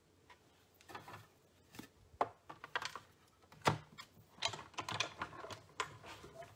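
Irregular clicks and taps of clear plastic cutting plates, a die and paper being handled and stacked, then slid into a manual die-cutting machine, with the loudest knocks about two and three and a half seconds in.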